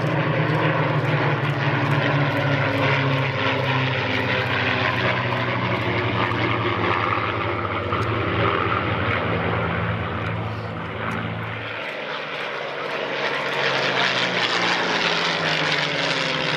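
A formation of four Spitfires with piston engines droning as they fly past. About twelve seconds in, the deep drone drops away and the engine sound turns thinner, then swells again near the end.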